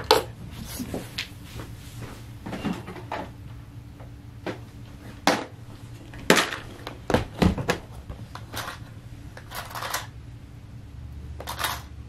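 Small hard objects being handled and rummaged through: scattered clicks and clinks and a few brief scraping rustles, irregularly spaced.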